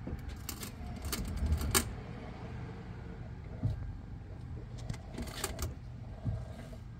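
Irregular pops and knocks from a Toyota's front strut top mount as the steering wheel is turned with the wheels off the ground, the loudest a little under two seconds in. The strut's top bearing is corroded and binding, so it sticks and lets go in pops instead of rotating smoothly.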